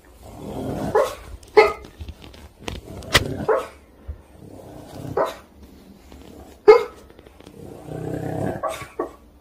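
A sleeping flat-faced dog dreaming: several rounds of heavy, laboured breaths, each broken by short muffled woofs.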